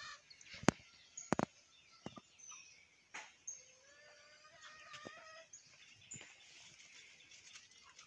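Birds calling: short pitched calls and faint high chirps, with a few sharp knocks near the start and about three seconds in.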